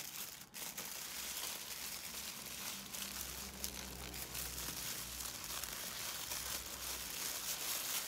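Tissue paper rustling and crinkling as hands gather and handle it into a paper flower, with a steady stream of small crackles.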